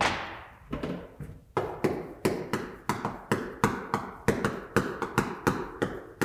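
Chalk writing on a blackboard: a quick run of sharp taps, about three a second, as the strokes of the characters go down, after a longer scrape at the start.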